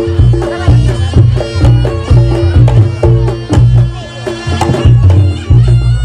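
Reog Ponorogo gamelan music: a reedy slompret shawm playing a sustained melody over a steady beat of drums and struck percussion.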